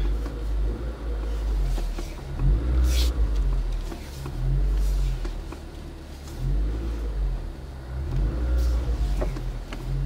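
Car engine running at low revs as the car reverses slowly, heard from inside the cabin as a low rumble that swells and eases with the throttle. A brief hiss about three seconds in.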